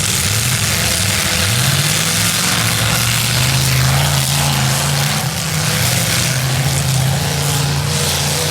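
V8 demolition derby car engines running loud and revving, the engine note climbing about two seconds in and then holding high.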